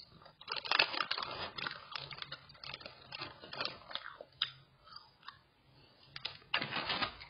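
Close-up chewing and biting of spicy gluten strips (latiao), with moist, clicky mouth noises. The chewing is densest from about half a second to two seconds in and again near the end, with sparser chews in between.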